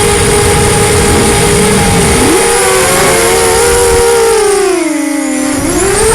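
FPV racing quadcopter's brushless motors and Gemfan 5045 bullnose propellers whining steadily, over wind rumble. About four seconds in, the rumble drops away and the pitch falls as the throttle eases off, then climbs back near the end.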